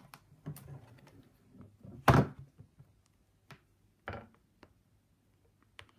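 Handling knocks from an embroidery hoop as pins are put into the fabric: light clicks and rustles, a loud thunk about two seconds in and a softer knock about two seconds later.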